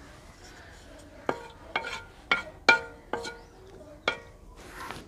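A spoon knocking six times against an aluminium kadai, roughly half a second apart, each knock leaving a short metallic ring.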